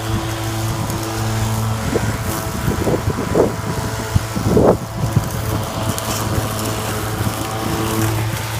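EGO 56V battery lawn mower running with a steady hum, its blade cutting through overgrown weeds. In the middle there is a quick run of cracks and rattles as the blade chops thicker stems and debris, the loudest just before halfway.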